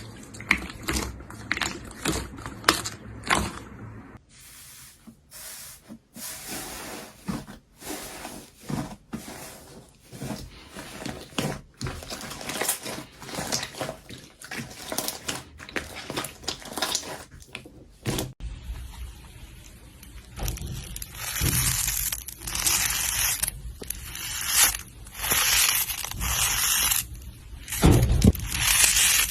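Hands working slime, making a run of sharp clicking and popping sounds. The texture changes abruptly about 4 and 18 seconds in, and the last part is denser and louder.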